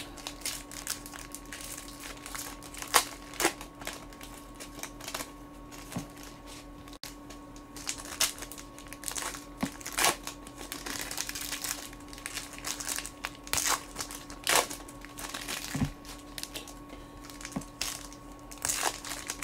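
Crinkling and sharp snaps of foil-wrapped trading-card packs being handled and stacked, scattered irregularly, over a steady faint hum.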